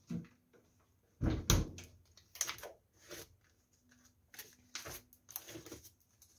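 Household handling noises: a couple of sharp thuds about a second in as the fridge door is shut and a yogurt tub is set on the counter. These are followed by intermittent rustles and clicks as the tub's plastic lid is worked open.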